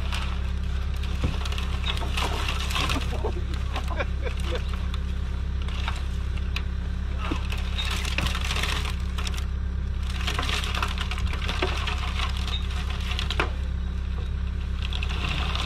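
Hyundai HX145 excavator's diesel engine running steadily, under the crackling and rustling of dry grass and brush and scattered knocks as a corrugated plastic drainage pipe is wrestled down into a ditch.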